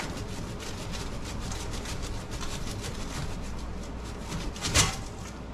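Black steel stovepipe section being twisted and worked loose from its ceiling collar: a steady, scratchy scraping of metal rubbing on metal, with one louder clank near the end.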